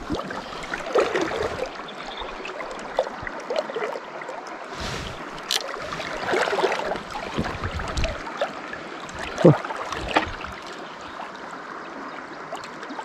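River water running, with irregular splashing and a few sharp clicks and knocks, the sharpest about nine and a half seconds in.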